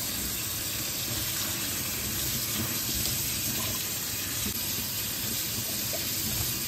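Kitchen tap running steadily onto sabudana (tapioca pearls) in a plastic colander in a stainless steel sink, with hands swishing the pearls to rinse them.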